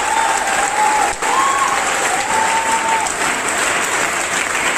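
An audience applauding steadily, with a few high held tones, like voices cheering, rising over the clapping in the first three seconds.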